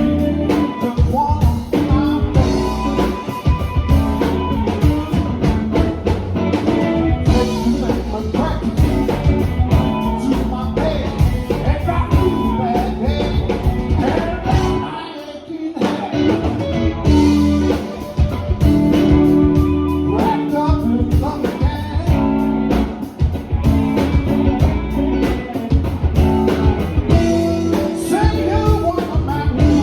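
Live blues band playing, with electric guitar, bass and drum kit, and a short stop in the band about halfway through before it comes back in.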